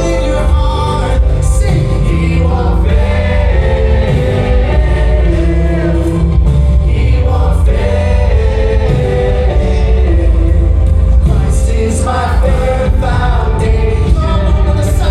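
Live contemporary worship music: a congregation and worship team singing together over a full band with heavy bass and drums.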